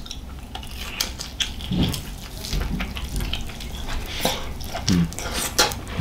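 Eating sounds: chewing and biting into pieces of grilled chicken thigh, with chopsticks clicking against a ceramic bowl in scattered short clicks.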